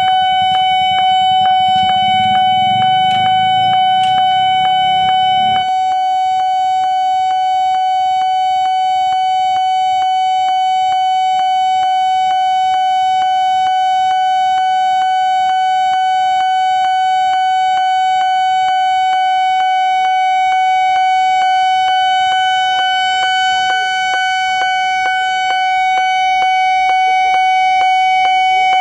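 Railway level-crossing alarm sounding very loud and without a break: one high tone pulsed rapidly over and over. A low rumble lies under it for the first five seconds or so, then stops abruptly.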